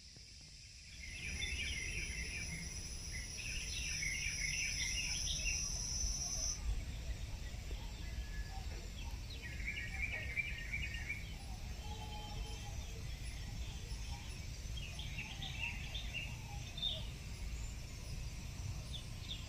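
Outdoor mountain ambience: small birds twittering in four short bursts, over a low steady rumbling noise. An insect gives a steady high whine for the first few seconds, then stops suddenly.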